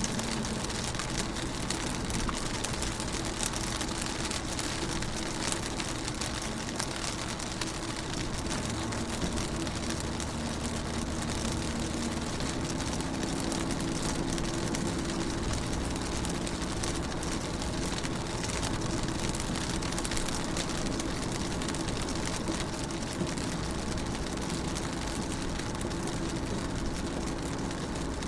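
Rain falling on a car's window and body, heard from inside the car: a dense, steady patter of small drop ticks over a hiss, with a steady low hum underneath.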